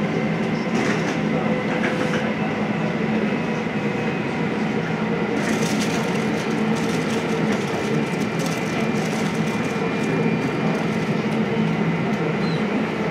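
Airbus A319's jet engines idling as it taxis in to the gate: a steady whine and rumble with several held tones, and a hiss that grows in the upper range from about five seconds in.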